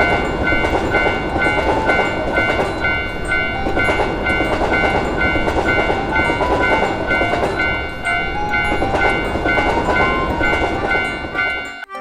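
Japanese railroad crossing bell ringing with a steady, repeating ding while a train rushes past. Both cut off suddenly near the end.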